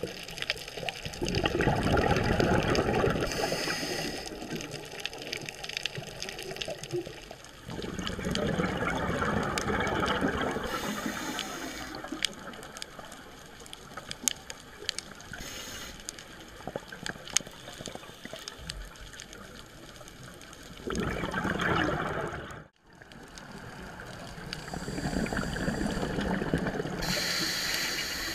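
Scuba diver's exhaled bubbles heard underwater through the camera, in about four surges a few seconds long, with short higher hisses of the regulator between them. The sound drops out for a moment about three-quarters through.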